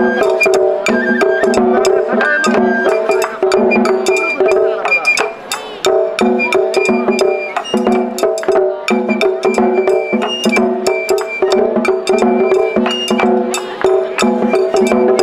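Japanese festival hayashi music: drums and a small hand gong struck in a quick, dense rhythm over held notes from a bamboo flute.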